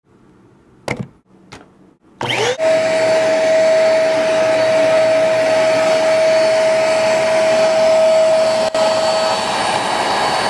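Two clicks, then an upright vacuum cleaner switches on: its motor spins up with a short rising whine and then runs steadily, a constant whine over the rush of air.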